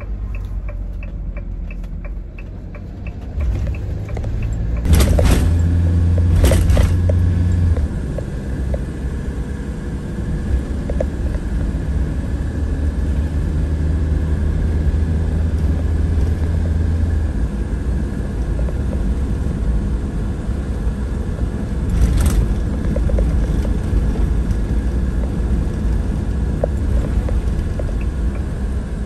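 Motorhome engine and road noise heard inside the cab while driving: a steady low rumble, with three sharp knocks, two close together about five and six and a half seconds in and one more a little past twenty seconds.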